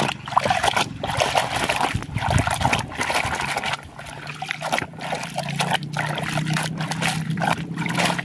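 Muddy water splashing and sloshing in a plastic tub as a hand swishes and shakes a plastic toy truck through it, in quick irregular splashes.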